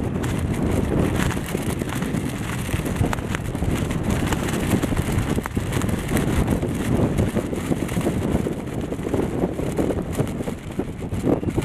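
Wind buffeting the microphone: a loud, uneven rush of noise that gusts up and down.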